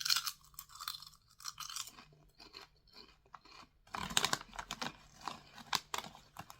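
A person biting into and chewing large Karamucho spicy chili tomato potato chips: a run of crisp crunches at the start, then a louder, denser run of crunching from about four seconds in.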